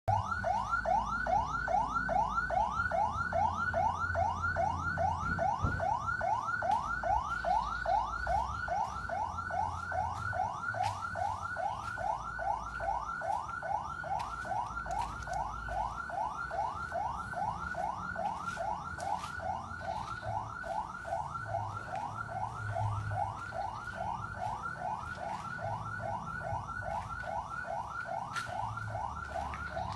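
Ambulance electronic siren in a fast yelp: short rising sweeps, about three a second, repeating without a break.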